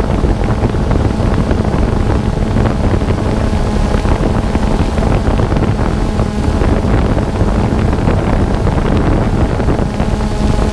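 DJI Phantom quadcopter's propellers and motors humming steadily as it holds position, with wind buffeting the GoPro microphone mounted on it.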